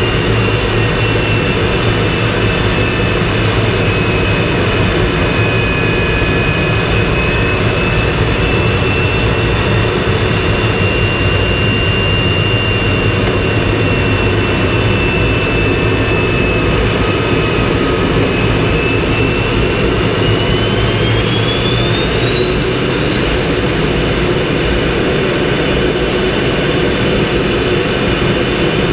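MiG-15's single centrifugal-flow turbojet heard from inside the cockpit in flight: a loud, steady rumble and roar with a high whine that holds level, then rises in pitch about two-thirds of the way through and stays at the higher pitch.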